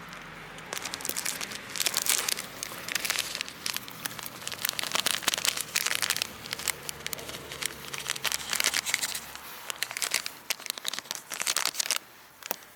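Irregular crinkling and rustling in bursts, like something being handled or crumpled, stopping near the end.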